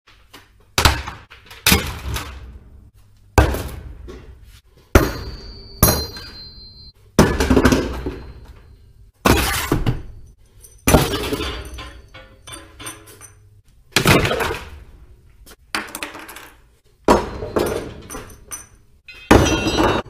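A series of about a dozen sharp, loud hits, one every second or two, each dying away over about a second.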